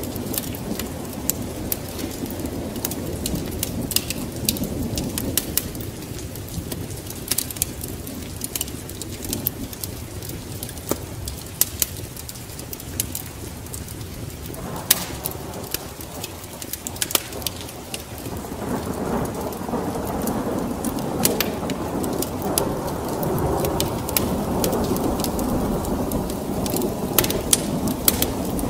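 Wood fire crackling with scattered sharp pops over a steady low rumble of rain and thunder, which swells louder about two-thirds of the way through.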